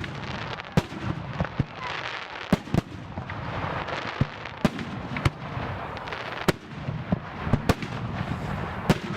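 Aerial firework shells bursting in a display: about a dozen sharp bangs at irregular intervals, over a continuous crackle and low rumble of the bursts.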